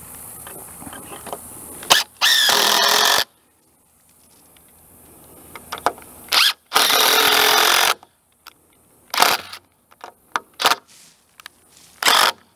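Cordless drill running in bursts, driving screws into a timber beam: two runs of about a second each, then several short blips.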